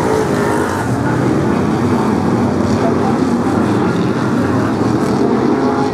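Several BriSCA F1 stock cars' V8 engines running hard together as the pack races around the oval, a loud, steady blend of engine noise.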